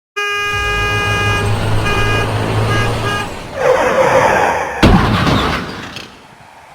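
A horn sounds one long blast, then three short toots, over a low engine-like rumble. A rushing swell follows, then a sudden loud thump about five seconds in, and the sound dies away.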